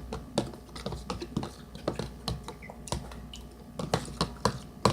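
Irregular light clicks and taps, several a second, over a low steady hum.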